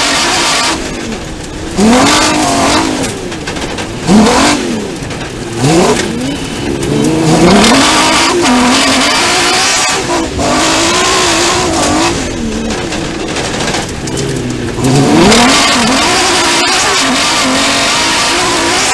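Superbuggy's Hošek V6 racing engine, heard from its own onboard camera, revving hard through corners: several times the revs drop as the throttle lifts and then climb again in rising sweeps, over a steady rushing noise.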